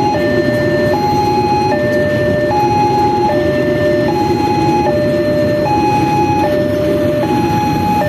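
Railway level-crossing warning speaker sounding its two-tone alarm, a high and a low note alternating evenly, each held just under a second. Beneath it, the steady rumble of a passenger train's coaches running past on the rails.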